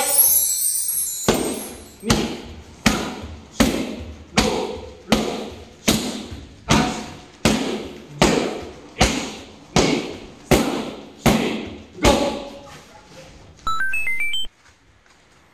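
Fifteen middle kicks smacking into a pair of kick pads, one about every three-quarters of a second, each smack trailing off in an echo. A short rising electronic chime plays near the end.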